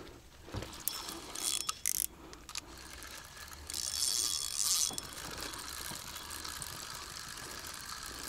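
Fishing reel being cranked, its gears clicking as line is wound in with a fish on.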